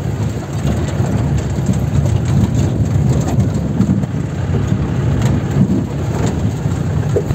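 Safari jeep driving over a rough, stony dirt track: a steady low rumble of engine and tyres, with a few light knocks.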